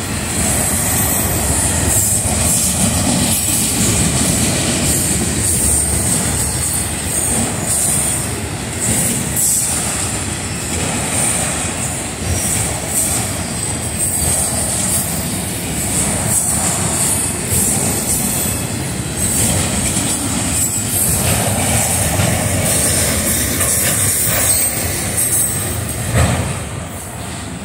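Freight train of autorack cars rolling past: steady rumble and clatter of steel wheels on the rails, with a thin high squeal running over it. The sound drops away near the end as the last cars go by.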